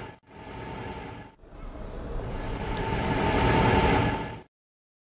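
Road traffic sound effect: car engines and tyres swelling as if passing close, in three spliced pieces that each cut off abruptly. The sound stops dead about a second before the end.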